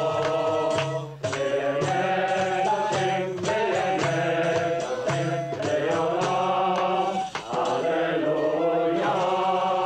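A group of men singing a rhythmic chant together, with steady hand-clapping at about two to three claps a second.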